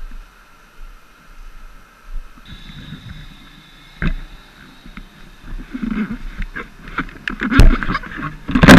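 Handling noise from a helmet-mounted camera being carried and set down: rustling and scattered knocks that get busier in the second half, with two sharp knocks near the end, the last the loudest.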